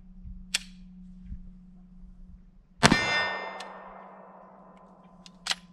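A single shot from a Polymer80 PF940V2 Glock 17-pattern 9mm pistol about three seconds in, followed at once by a struck steel target ringing and fading over about a second and a half. A light click sounds just after half a second in.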